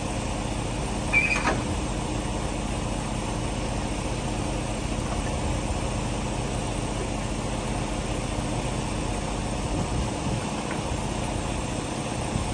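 Semi-truck's diesel engine idling steadily while the tractor is being unhitched from its trailer. About a second in there is a brief sharp metallic clink.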